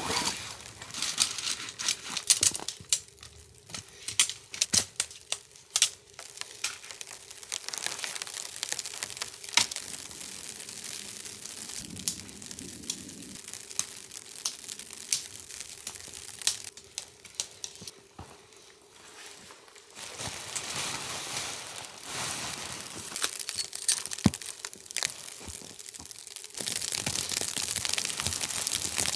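Tent and tarp fabric being handled while the tent is pitched: irregular crinkling and rustling with sharp crackles, coming and going in uneven spells.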